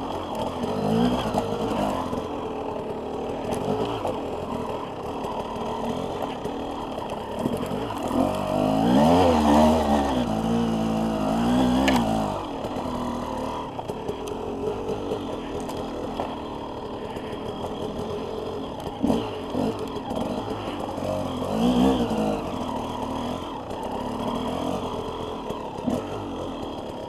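Off-road dirt bike engine running while the bike is ridden, its revs rising and falling with the throttle. The loudest stretch is a burst of revving about a third of the way in.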